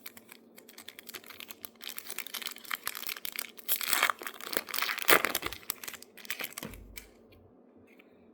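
Foil trading-card pack wrapper being torn open and crinkled by hand, a dense run of crackling that builds to its loudest about four to five seconds in and stops near the end.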